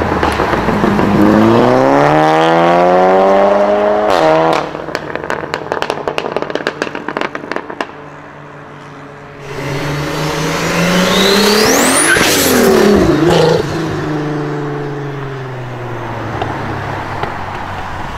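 Volkswagen Golf engine revving hard as the car accelerates, the pitch climbing for about four seconds, then a burst of exhaust crackles and pops on lift-off. About ten seconds in, another car revs up and passes with a rising whistle, and near the end an engine runs steadily at lower revs as a car pulls away.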